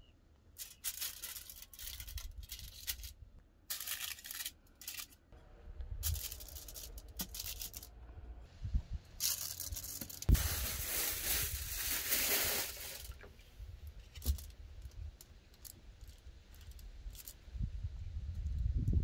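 Aluminium foil lining a baking tray crinkling and rustling as dough rolls are handled and set on it. It comes in several bursts, the longest lasting a few seconds around the middle, with a few small clicks between.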